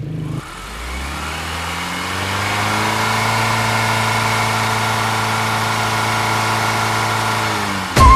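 Motorcycle engine picking up revs over the first few seconds, its pitch rising, then running at a steady pitch while cruising; the sound cuts off abruptly near the end.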